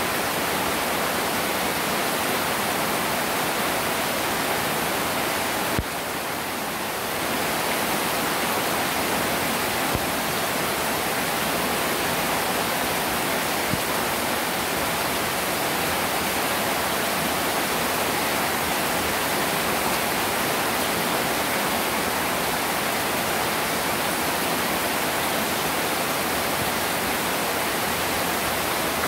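Heavy tropical downpour pounding onto standing floodwater, a steady dense hiss. A small click about six seconds in, after which it is briefly a little quieter.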